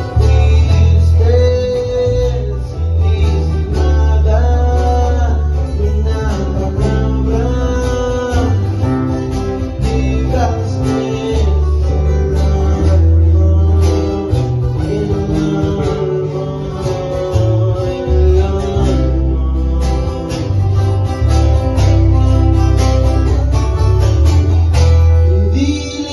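A band playing an instrumental passage: a plucked guitar melody over a deep, steady bass.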